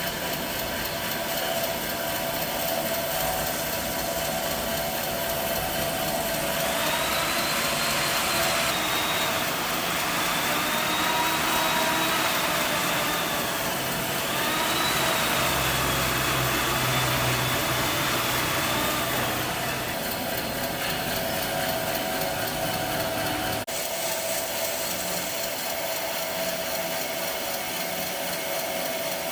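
Workshop power machinery running steadily with a constant hum. From about seven to about twenty seconds a louder hissing whine comes in, swelling and fading twice, as the machine is worked.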